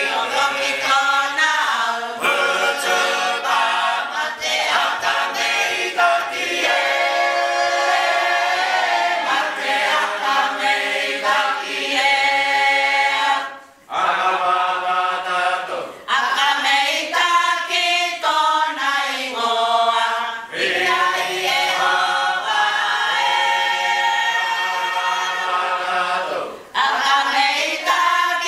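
A choir singing Cook Islands imene tuki, a hymn in several voice parts with no instruments. The singing pauses briefly between phrases, most deeply about halfway through.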